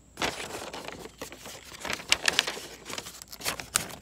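Cardboard box being opened by hand: flaps and paper inside rustling and crinkling, with a cluster of sharp crackles about two seconds in and two more near the end.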